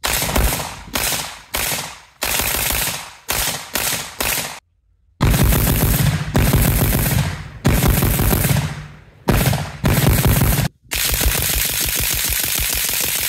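A 7.62x39 AK-pattern rifle firing repeatedly in short runs, each starting with a sharp report that tails off. The runs break off abruptly, with brief silent gaps between them.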